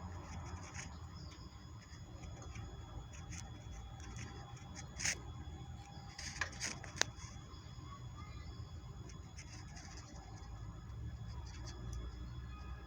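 Light scratching and a few sharp clicks, the loudest about five and seven seconds in, from a caged female goldfinch moving about its cage, over a steady low hum.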